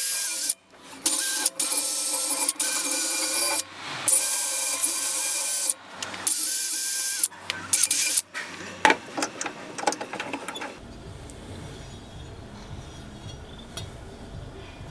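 A power tool running with a loud, steady rasping hiss as it abrades the workpiece, cut off abruptly several times. It is followed by a run of sharp clicks and knocks, then a quieter low steady hum.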